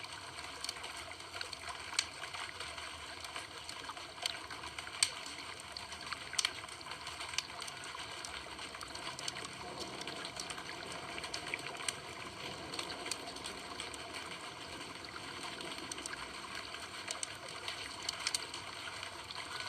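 Campfire burning with a steady hiss and frequent sharp crackles and pops, a few of them louder.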